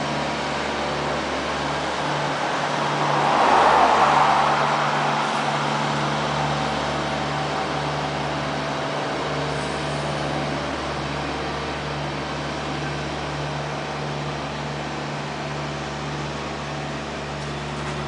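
Freight train boxcars rolling past: a steady noise with a low hum. A louder swell of noise rises and fades about three to four seconds in.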